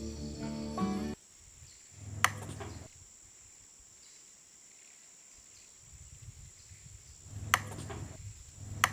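Background music stops abruptly about a second in. What follows is quiet except for a faint steady high whine and three sharp clicks, each with a brief low hum around it.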